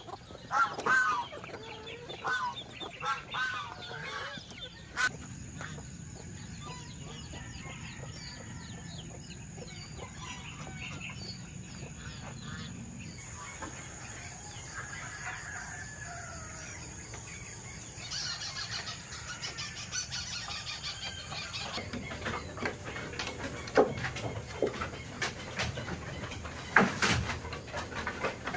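Farmyard fowl calling, chickens clucking and geese honking, over the first few seconds. Then a steady rustle of leafy tree branches being carried, with a few sharp knocks near the end as they come down on a bamboo floor.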